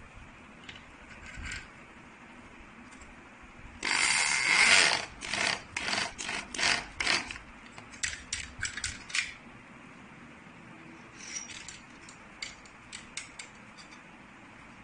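A small metal barrel bolt on a wooden slat gate being worked. About four seconds in comes a loud scraping slide, then a run of sharp metallic clicks and knocks, with a few fainter clicks later.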